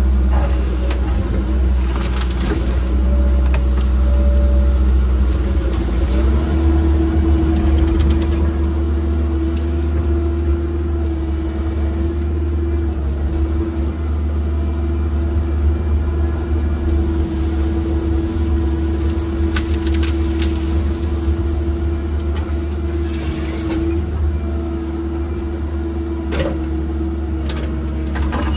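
An engine running steadily with a deep hum, its pitch stepping up slightly about six seconds in, with a few short knocks over it.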